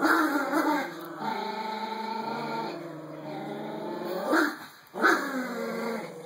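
Yorkie-Pom puppies growling in play while tugging a rope toy between them: a long, steady growl through the middle, with sharper yelping growls at the start and twice more about four and five seconds in.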